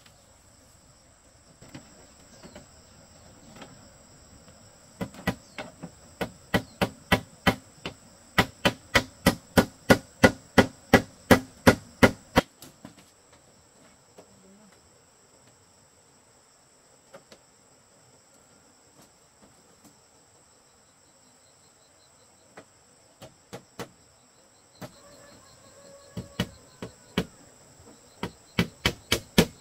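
A hammer strikes a bamboo frame in two runs of steady blows, about three a second, with a pause of roughly ten seconds between them. A steady high insect drone carries on underneath.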